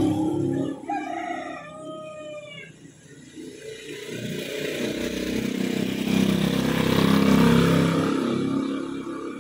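A rooster crows once, about a second in. Then a louder low rumbling noise swells for several seconds and fades near the end.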